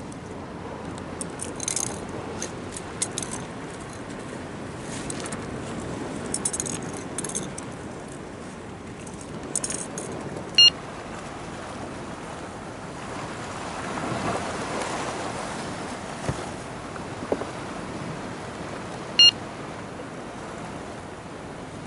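Small fishing tackle being handled and rummaged through in a plastic tackle box: light clicking and jingling rattles, most of them in the first ten seconds, over a steady background noise. Two short high electronic beeps cut in, about eight seconds apart.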